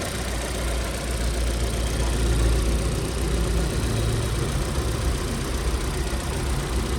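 Chevrolet Cruze 1.8 four-cylinder petrol engine idling steadily. The gearbox no longer whines after the repair; the mechanic calls it smooth.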